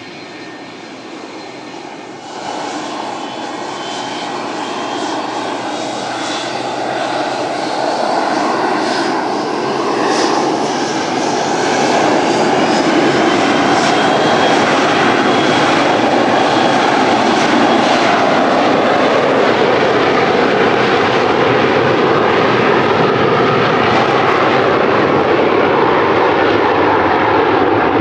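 A McDonnell Douglas MD-83 freighter's two rear-mounted Pratt & Whitney JT8D turbofans spooling up to takeoff power. A rising whine over growing engine noise builds for about ten seconds from a couple of seconds in, then holds loud and steady through the takeoff roll.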